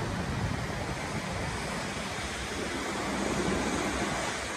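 Steady city street noise of traffic, with wind rumbling on the microphone.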